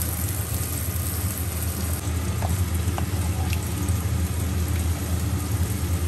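Chicken curry in its masala sizzling as it fries in an aluminium pressure cooker and is stirred with a wooden spatula, over a steady low hum.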